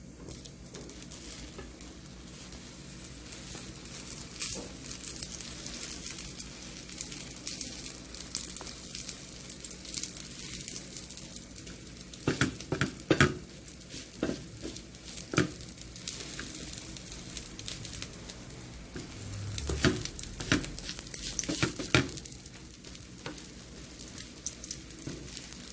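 An egg omelette frying in hot oil in a nonstick pan, with a steady sizzle and crackle that swells and fades. Several sharp taps and pops come around the middle and again later, as a spatula is worked under the omelette to fold it.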